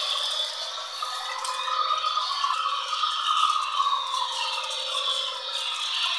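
Model train running on its track: the electric motor's whine, wavering and sliding in pitch, with the wheels rattling over the rails as the cars roll by.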